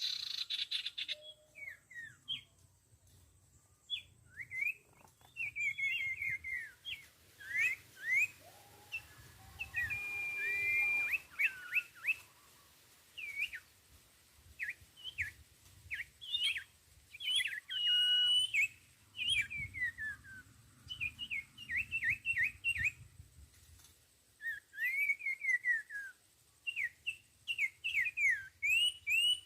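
Sirtu (cipoh) birds calling again and again: short whistled notes that slide up and down, given in quick runs.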